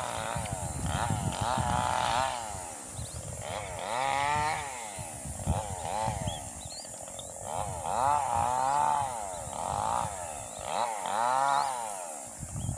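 Raptor chicks begging for food in the nest: runs of repeated calls, each rising and falling in pitch, with short pauses between the runs.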